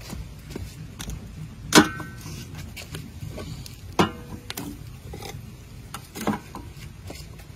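Metal cookware clanking: a lidded aluminium pot and lid knocking against a steel wok on a wood-fired stove. There are three sharp clanks, the first about two seconds in and the loudest, with a short metallic ring after the first two.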